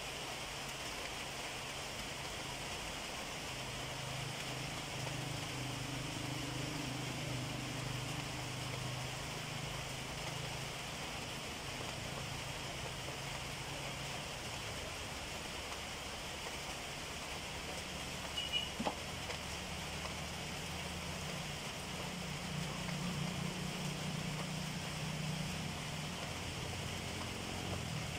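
Steady rain falling on and around a corrugated metal roof, an even hiss throughout, with a low hum that comes and goes underneath.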